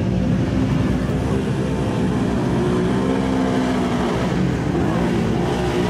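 Super Modified mud-racing vehicle engines running at high revs, the pitch rising and falling as they race through the mud pit.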